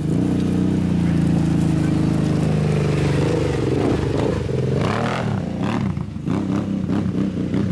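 Kawasaki Teryx UTV's V-twin engine through a Two Brothers aftermarket exhaust, jetted to suit, running at steady revs and then revving up and down about halfway through. From then on the rear tyres spin and spray dirt and gravel in a small burnout.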